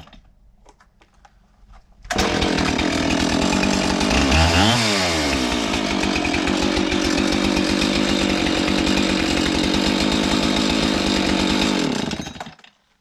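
Husqvarna 576 XTorq two-stroke chainsaw running steadily with its welded muffler refitted, starting abruptly about two seconds in after a few faint clicks. Its pitch rises and falls briefly once a couple of seconds after it starts, and it dies away shortly before the end.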